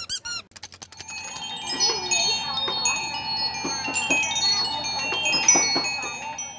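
A few squeaks from squeezed squeaky toys. Then, from about a second in, a cluster of small chimes tinkling, many short overlapping high ringing notes over one steady held tone.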